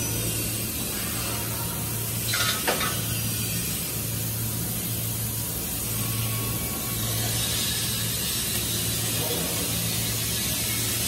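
Welding shop noise: a steady low electrical hum under a broad hiss of arc welding, with a brief metallic clatter about two and a half seconds in.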